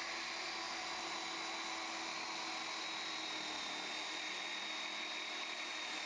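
A power tool's electric motor running steadily, a constant whir with a faint high whine.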